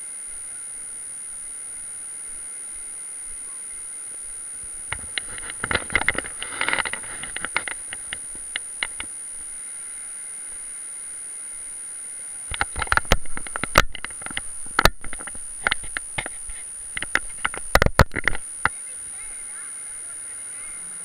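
Crackling and knocking handling noise on a hand-held camera in two spells, over a steady hiss and a faint high-pitched whine.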